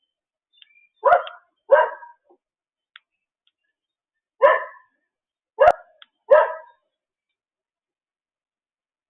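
A dog barking: five short, sharp barks, a pair followed a couple of seconds later by three more.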